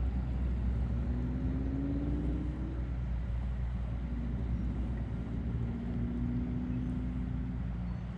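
Steady low rumble with a faint motor hum that rises in pitch about a second in, then holds steady later on: a distant engine running.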